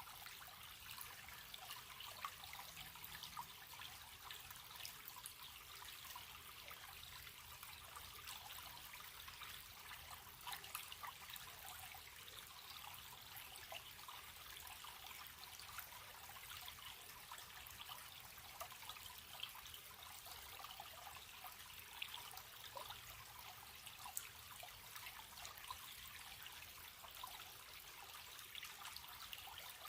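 Stream water running and trickling steadily, a continuous quiet wash full of small splashes and drips.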